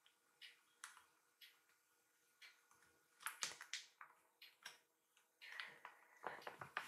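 Near-silent room with faint scattered clicks and light rustles, a denser cluster of sharper clicks about three seconds in and again near the end.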